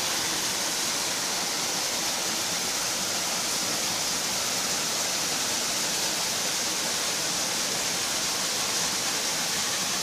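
Steady rushing of water from a small waterfall on a creek, an even hiss that does not change.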